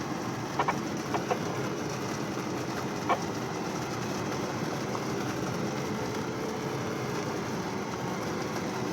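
Steady rush of air in an aircraft cockpit in flight, with a few short chirping beeps, two pairs in the first second and a half and one about three seconds in, and a faint steady tone in the second half.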